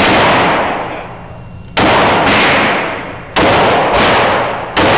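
.357 Magnum revolver fired four times, about a second and a half apart. Each shot is a sharp crack that dies away slowly in the echo of an indoor shooting range.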